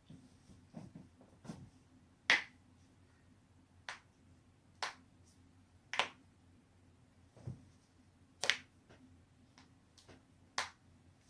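Human joints being cracked: a string of about nine short pops at uneven intervals, most of them sharp and crisp, a few softer and duller.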